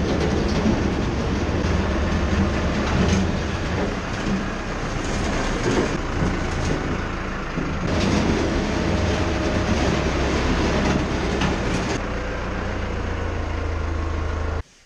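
Tractor diesel engine running as the front loader bucket is pushed along a concrete floor, with a steady low rumble and scraping rattle from the bucket. The sound cuts off suddenly near the end.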